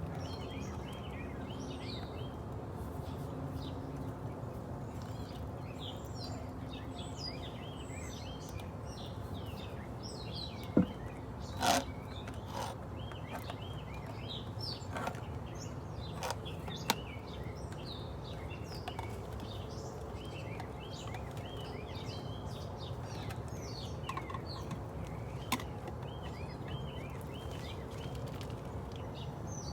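Small birds chirping and calling throughout over a steady low background hum, with a few sharp knocks near the middle.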